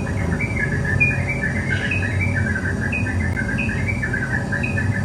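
Small songbirds singing: a busy, continuous run of short chirping notes repeated over and over, with a steady low rumble underneath.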